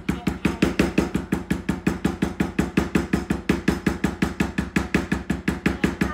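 White poly maul rapidly striking a leather stamping tool, pressing a pattern into a leather sheath blank. The strikes are short, sharp knocks in a steady rhythm of about six a second.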